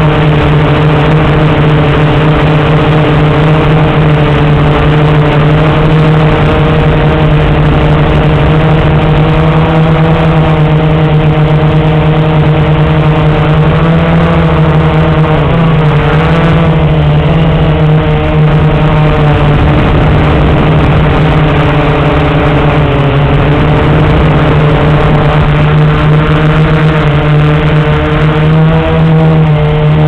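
Blade 350 QX quadcopter's four brushless motors and propellers whining steadily, loud and close. The pitch dips and wavers briefly about halfway through as the motor speeds change.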